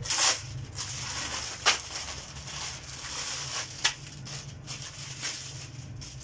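Clear plastic garment bag crinkling and rustling as folded embroidered fabric is pulled out of it and laid on a counter, with a few sharper crackles of the plastic.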